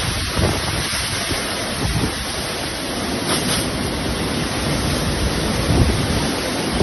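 Heavy rainstorm with strong gusting wind, the gusts buffeting the microphone as a low rumble under a steady rushing hiss.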